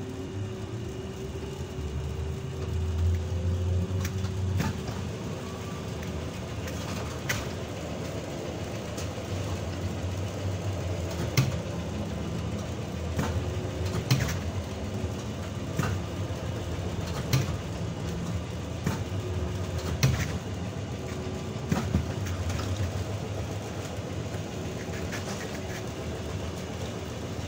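ZiU-682G trolleybus on the move: its traction motor whine rises in pitch as it accelerates over the first few seconds, then it runs on steadily with a low rumble and a hum. Sharp knocks and rattles come every second or two.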